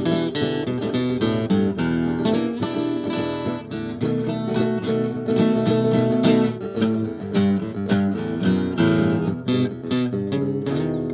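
Acoustic guitar played solo, chords struck in a steady rhythm.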